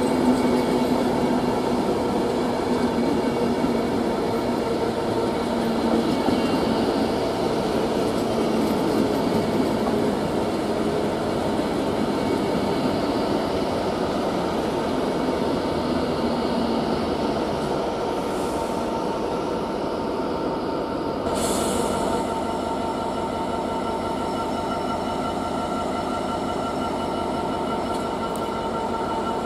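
Class 390 Pendolino electric train running through on the main line: a continuous rumble of wheels on rail with steady electric tones, slowly easing as the last coaches pass. About two-thirds through the sound changes abruptly to a second Pendolino approaching, a little quieter, with steady tones.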